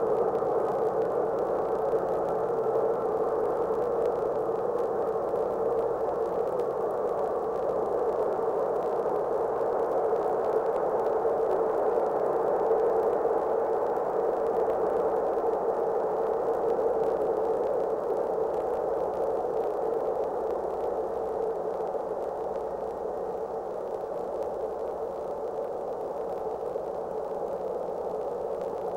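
Steady, muffled rushing noise of a tugboat underway, its engine and the water churning alongside the barge blended together with no distinct beat. It eases off slightly near the end.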